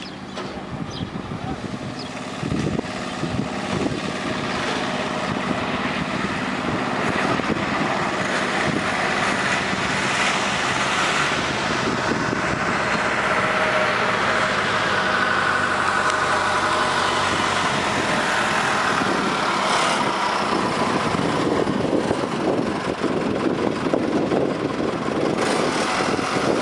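Aircraft engines during a landing: a steady engine roar that swells over the first several seconds and then holds loud, with a whine that slides in pitch about halfway through.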